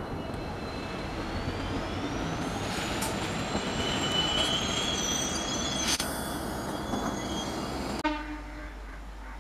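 Passenger train rolling past on a curve: a steady rumble of coach wheels on the rails with thin, high flange squeals that glide upward and come and go, and a few sharp clicks from the rail joints. The sound drops off abruptly about eight seconds in.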